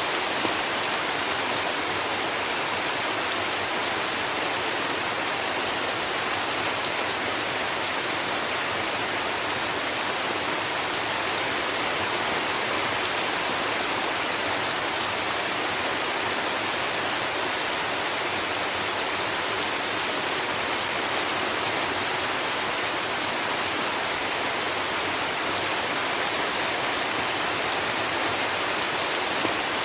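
Heavy rain falling steadily, an even hiss of countless drops with faint scattered ticks, without thunder.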